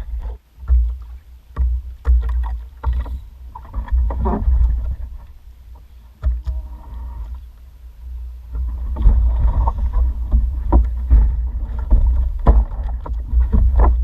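Sounds aboard a small fishing boat on the water: an uneven low rumble with scattered knocks and bumps.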